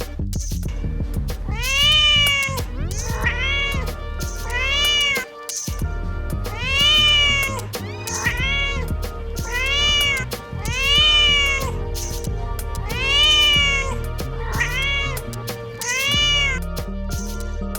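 Domestic cat meowing repeatedly: about a dozen meows, each rising then falling in pitch, at roughly one-second intervals, with background music underneath.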